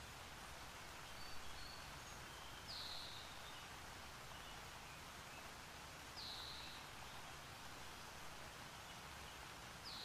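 Soft, even rush of a waterfall, with a bird repeating a short high chirp that drops in pitch three times, about three and a half seconds apart, and a few fainter short notes about a second in.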